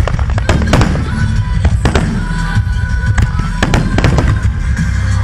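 Fireworks: a dense barrage of aerial shells bursting in rapid, overlapping bangs over a continuous low rumble.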